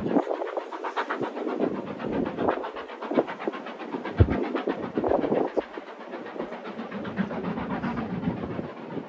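Steam train passing, with a fast rhythmic chuffing and clatter that eases a little after about six seconds.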